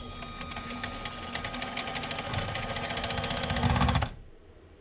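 Harbor Freight mini lathe running under load as a 5/16-18 tap is fed into a steel clevis, a steady whirring with rapid fine ticking. It grows louder toward the end and cuts off suddenly about four seconds in.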